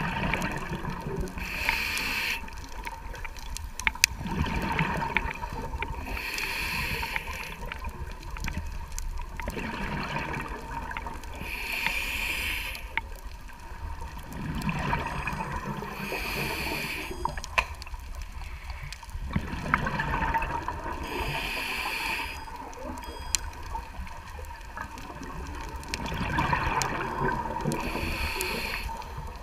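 Scuba diver breathing through a regulator underwater: slow breaths about five seconds apart, each a hissing inhale alternating with a bubbling exhale, over a steady low rumble of water.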